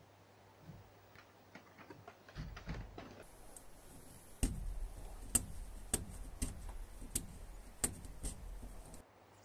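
Work at a hand-knotting carpet loom: faint clicking at first, then, from about halfway through, a run of sharp knocks, about one or two a second, over a low rumble. The knocks stop shortly before the end.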